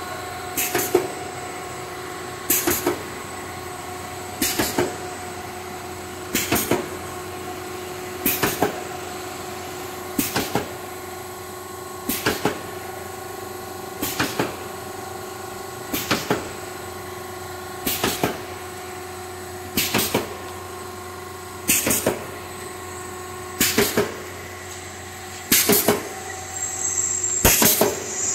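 Twin-screw pet treat extruder line running with a steady hum, broken by a short double clank about every two seconds from the machine's repeating stroke.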